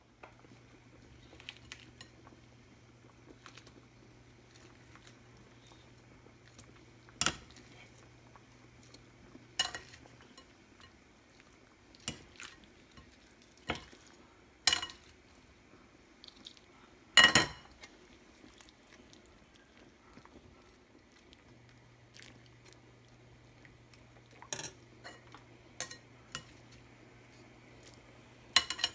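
Metal kitchen tongs knocking and scraping against a metal pan of broth as raw shrimp are put in and stirred: scattered sharp knocks, the loudest about 17 seconds in. A faint low hum runs underneath, stopping about 10 seconds in and coming back about 21 seconds in.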